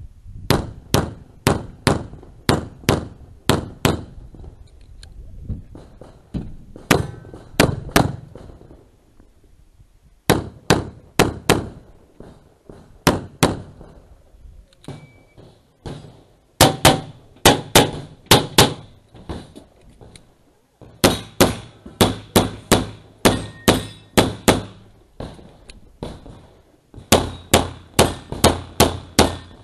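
Semi-automatic pistol fired in rapid strings of shots on a practical-shooting stage: runs of three to eight sharp cracks in quick succession, separated by short gaps of a second or two.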